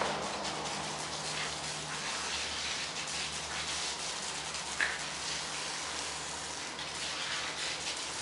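Garden hose spraying water onto a dog's coat and splashing on wet asphalt, a steady hiss. A single short high squeak about five seconds in.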